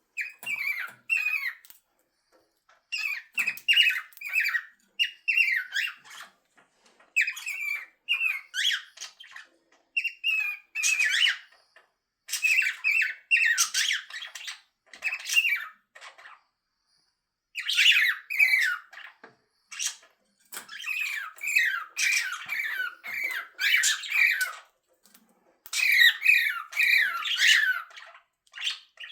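Pet parrot calling on its playstand in repeated bouts of short, wavering, high calls, each bout a second or two long with brief pauses between, and a longer pause about halfway through.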